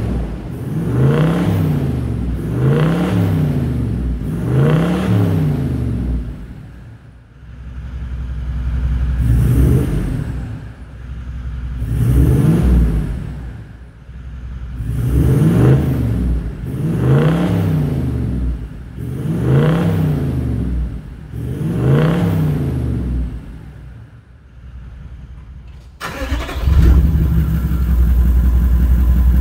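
Toyota 1VD-FTV 4.5-litre V8 turbo-diesel heard at the tailpipe of a 3-inch mufflered turbo-back exhaust, free-revved in short blips about every two seconds, dropping back to idle between sets. Near the end it idles steadily and sounds louder.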